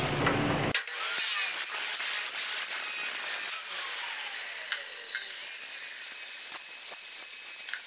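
Handheld angle grinder running, its disc grinding into a steel square pipe to cut a marking notch, starting about a second in.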